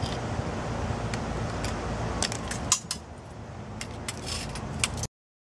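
Light metallic clinks and rattles of loose printer parts and hand tools being handled and set down, a few sharp clicks among them. The sound cuts off to dead silence near the end.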